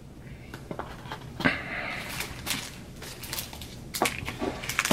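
Trading cards and foil pack wrappers being handled: a scatter of soft taps, scrapes and short rustles.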